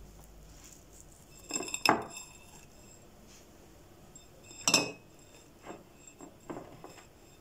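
Kitchenware clinking: two sharp, ringing clinks about two seconds and five seconds in, with a few softer taps and knocks between them.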